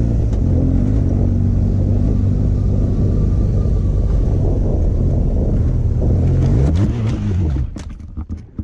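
BMW R 1200 GS boxer-twin engine running steadily as the motorcycle rides along a dirt track, with a brief rise and fall in revs about seven seconds in. Near the end the engine note drops away and a cluster of knocks and scrapes follows as the bike crashes onto its side.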